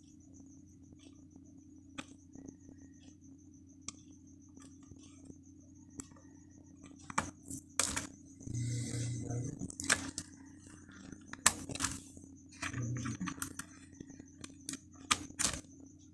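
Scattered sharp clicks and small handling knocks from desktop computer memory and its motherboard slot being worked by hand, getting busier about halfway through, over a steady hum.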